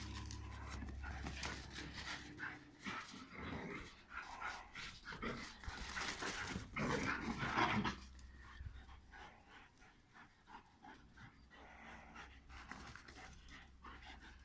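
Two greyhounds play-fighting, panting hard. The sounds are busiest for about the first eight seconds, then die down.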